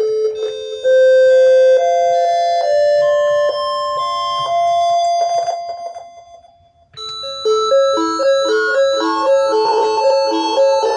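Electronic keyboard playing bell-like notes: a slow, rising line of held tones that fades away about six and a half seconds in, then a quicker repeating pattern of short notes starts.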